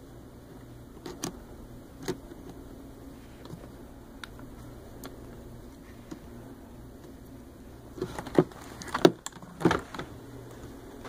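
A few sharp clicks of cutters squeezing the hose clamps on the pump's hose fittings, over a low steady hum. Near the end comes a burst of louder knocks and clatter.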